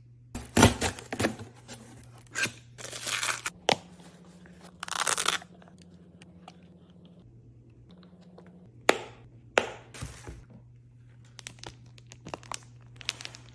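Hands handling and opening product packaging: paper and plastic rustling, tearing and crinkling in short bursts, with sharp snaps and clicks in between.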